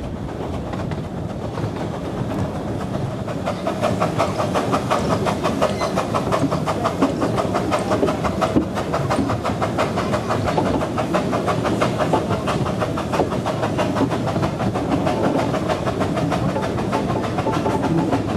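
Ravenglass and Eskdale Railway's 15-inch-gauge steam train running, heard from one of its open carriages: a steady rumble with a fast, regular clatter that grows louder about three seconds in.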